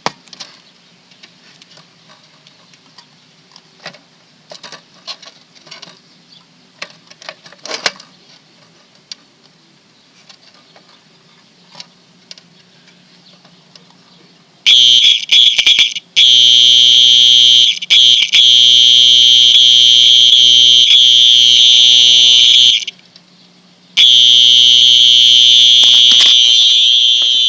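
Simplex fire alarm sounding on a 6-volt supply. For about the first half there are only faint clicks and handling knocks. Then, about halfway in, a loud high alarm tone starts, stutters on and off, sounds steadily for about six seconds, cuts out for about a second, and comes back on near the end.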